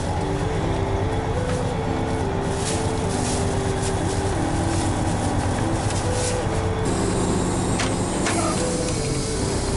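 Semi-truck diesel engine idling, heard from inside the cab, with a simple melody of stepping notes playing over it. Plastic bag crackling in roughly the first seven seconds.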